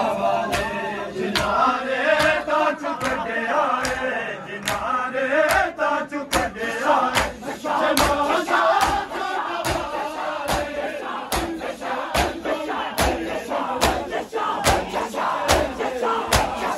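Crowd of men chanting a noha (Shia lament) in unison while beating their chests in rhythm (matam), the sharp hand slaps falling a little more than once a second.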